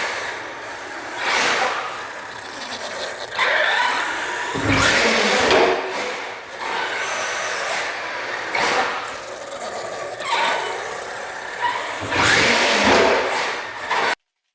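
Team C T8T electric RC truggy on a Castle 6S brushless system being driven in repeated full-throttle bursts: about five surges of motor whine and tyre noise that rise and fall as it speeds up and passes. The sound cuts off suddenly just before the end.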